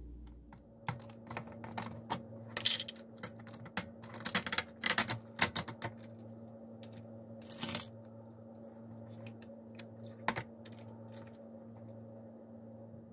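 Plastic yogurt tub being opened by hand: a run of clicks and crackles as the snap-on lid and seal are pulled off, densest about two to six seconds in, over a steady low hum.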